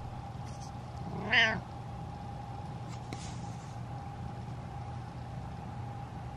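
Orange-and-white domestic cat giving one short meow about a second in, rising in pitch, over a steady background hum.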